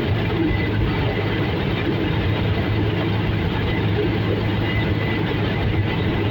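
Helicopter engine and rotor noise, a loud, steady drone with a low hum that does not change.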